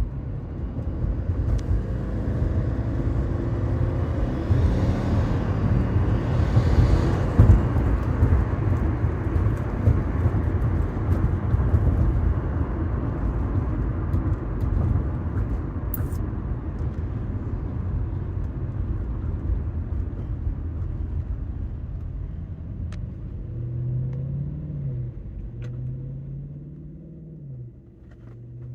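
2014 Subaru Forester XT's turbocharged 2.0-litre flat-four pulling under load, with a fluttering, whirring sound from exhaust escaping past the gasket of the exhaust manifold, whose nuts were under-torqued. Near the end the load eases and the engine note falls.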